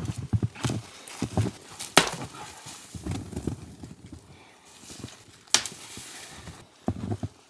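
Uneven crunching footsteps in snow, with two sharp cracks, one about two seconds in and one about five and a half seconds in.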